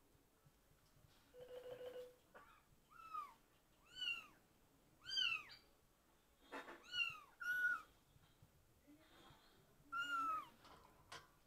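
A kitten mewing repeatedly: about seven short, high-pitched mews, each rising then falling, with a brief low buzz about one and a half seconds in and a sharp click or two.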